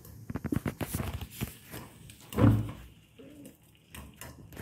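Kitchen handling sounds: a plastic noodle packet rustling with a quick run of small clicks and knocks, then one louder low thud about halfway through.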